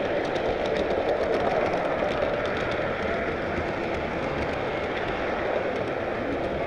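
Model train rolling along the layout's track, heard from aboard one of its cars: a steady rolling rumble of wheels on rail with light irregular clicking.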